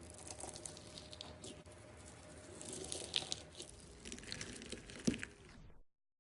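Slime being squeezed and stretched by hand, with a run of small crackles, clicks and pops. The sharpest pop comes near the end, and then the sound cuts out.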